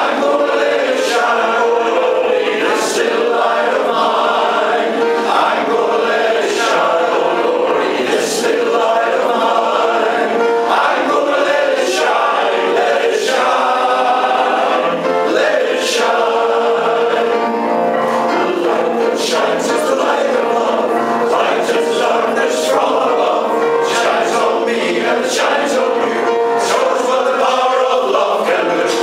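Male voice choir singing in harmony, many men's voices holding sustained notes together.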